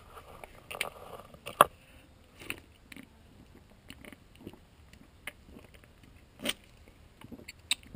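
Scattered light clicks and knocks of things being handled and set down, the sharpest one about one and a half seconds in, with a few fainter taps after it.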